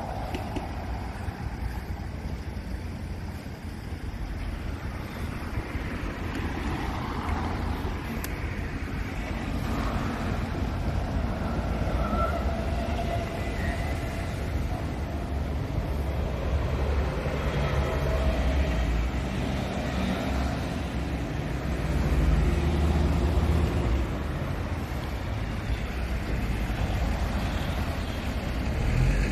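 Road traffic: cars driving past on the street, a steady low rumble of engines and tyres that swells as vehicles pass.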